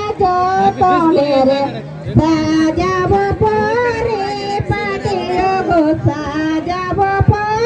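A high female voice singing a Tusu folk song in long, held, wavering notes, with irregular low knocks underneath.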